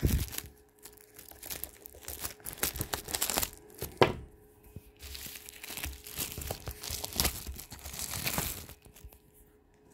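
Plastic shrink-wrap being torn and crinkled off a hardcover book by hand: irregular crackling and tearing, with one sharp snap about four seconds in.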